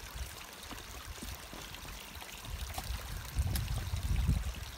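Mountain stream running: a steady rush of water, with a low rumble that grows louder over the last couple of seconds.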